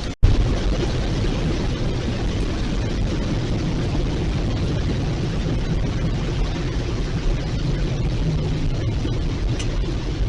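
Steady rushing noise inside a van's cabin, even throughout with no distinct events.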